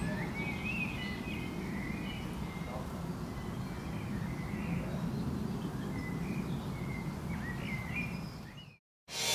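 Birds chirping and calling in short scattered phrases over a steady low outdoor rumble. The ambience fades out near the end, and after a brief silence live band music starts.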